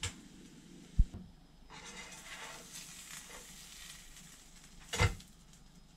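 Buttered grilled cheese sandwich sizzling faintly in a non-stick frying pan. There is a short low knock about a second in and a sharp knock about five seconds in.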